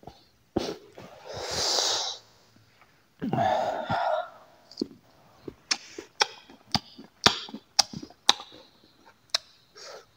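Close-miked mouth sounds of a smoker: a long breathy exhale about a second in, a louder, rougher breath about three seconds in, then a run of sharp wet clicks and smacks of chewing.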